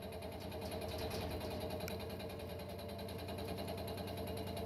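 Suburban Tool fly cutter spinning in a vertical milling machine, taking a light facing cut across a steel plate: a steady machining hum.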